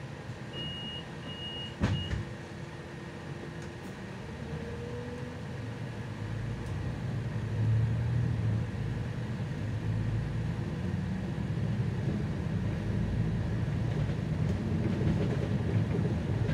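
Inside an articulated city bus: three short high beeps of the door-closing warning, then the doors shut with a thump about two seconds in. The bus then pulls away, its engine rumble growing louder as it accelerates from about six seconds in.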